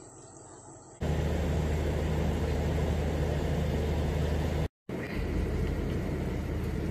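Idling engine, a loud, steady low hum, starting abruptly about a second in and cutting out for an instant near the middle.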